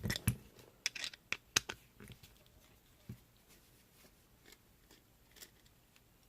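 Scattered small clicks and taps of a screwdriver working on a padlock, densest in the first two seconds, then a few faint taps.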